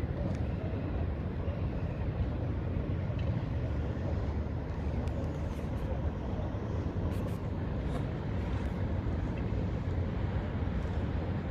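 Steady low rumble of outdoor city background noise, with a few faint high ticks in the middle.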